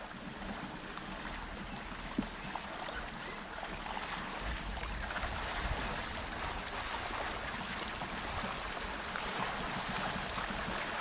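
Steady outdoor wash of lake water and wind noise, with one short knock about two seconds in.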